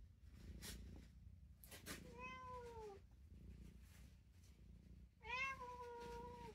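A domestic cat meowing twice: a short meow about two seconds in that falls in pitch, and a longer, steadier meow near the end, with a couple of faint clicks before the first.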